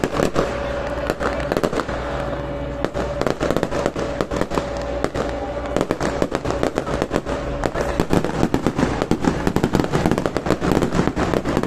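Fireworks display: rapid, irregular crackling and popping from spark fountains and crackle-star bursts, growing denser over the last few seconds. A steady tone runs underneath until about two-thirds of the way through.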